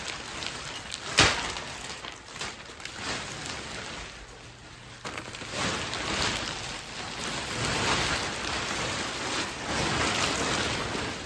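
Plastic wrapping rustling and crinkling as a compressed mattress is pulled out of it, with one sharp crack about a second in.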